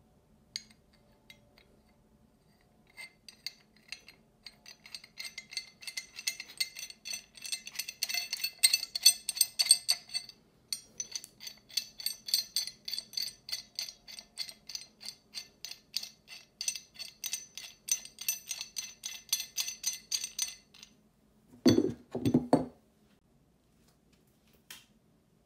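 Pipe wrench's knurled adjusting nut being turned by hand on the hook jaw's threaded shank, a fast run of small, ringing metal-on-metal clicks and clinks. Near the end, two dull knocks as the wrench goes down onto the wooden bench.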